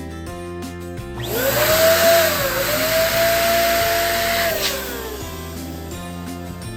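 Electric balloon inflator running for about four seconds, its motor whine rising as it spins up, dipping once, holding steady under a rush of air, then winding down. Background music plays throughout.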